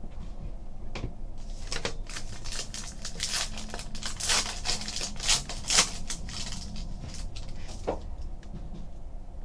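Foil trading-card pack being torn open and crinkled in the hands, then cards slid out: a run of sharp crackles, loudest about four to six seconds in, with a single click near the end.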